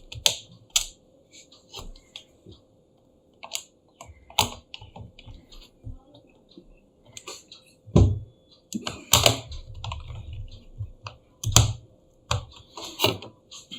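Irregular light clicks and taps of a precision screwdriver and small screws on a laptop's chassis as screws are set and driven in, with a few louder knocks partway through.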